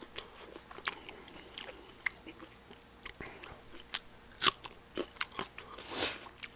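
A person chewing food close to the microphone: scattered wet clicks and lip smacks at an irregular pace, with a short louder rush of breath about six seconds in.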